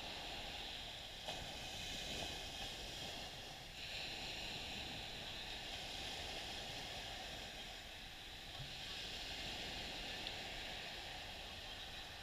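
Small waves washing up on a sandy beach: a steady hiss that swells and eases every few seconds.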